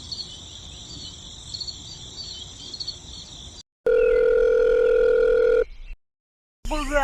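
Crickets chirping in an even, high-pitched pattern for about three and a half seconds, cut off abruptly. After a brief silence comes a loud, steady electronic tone like a telephone dial tone, lasting almost two seconds, which also stops abruptly.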